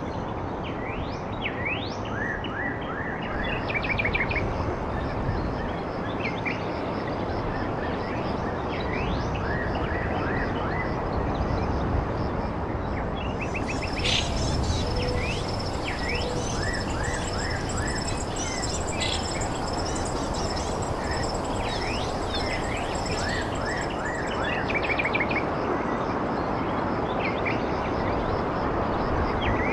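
Small birds chirping and trilling in quick short calls over a steady rushing background noise. About halfway through, a thin high steady whine joins in for roughly ten seconds.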